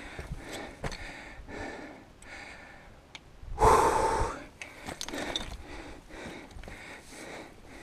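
A climber breathing hard from the exertion of hauling up a fixed chain on steep rock, in a run of short breaths, with one longer, louder breath about three and a half seconds in.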